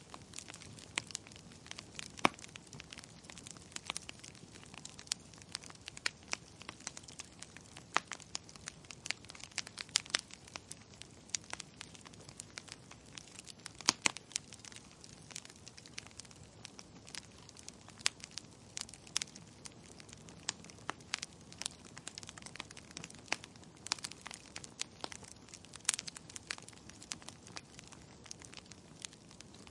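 Wood fire crackling: burning logs giving off sharp, irregular pops and snaps, several a second, with a few louder pops standing out over a faint steady hiss.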